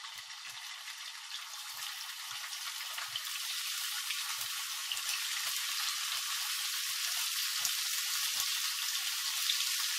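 Chicken fillets frying in hot olive oil in a pan: a steady sizzle with faint pops that grows louder as more fillets are laid in.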